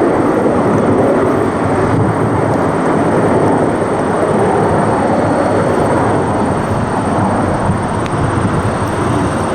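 Jet engines of Canadair CT-114 Tutor aircraft passing low on landing approach with gear down: loud, steady jet noise that eases slightly near the end.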